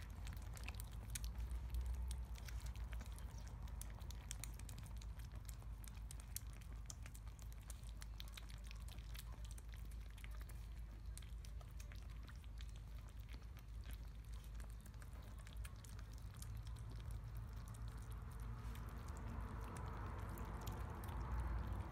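A litter of five kittens eating together from one bowl: a continuous run of small, quick, wet clicks and smacks of chewing, over a low steady rumble.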